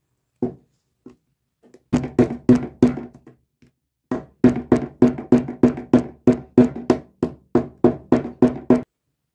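Restored combination pliers worked open and shut in one hand, the jaws knocking shut in sharp clicks. A single click comes first, then a short run, then a longer steady run of about three clicks a second.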